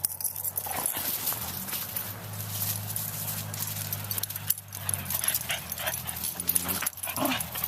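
Dogs playing: short dog vocalisations and scattered scuffling clicks, with a brief pitched whine about seven seconds in, over a steady low hum.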